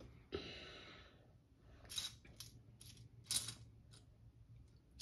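Small plastic Lego pieces clicking and rattling as they are handled and picked out of a pile, with a short rustle about a third of a second in followed by several separate clicks.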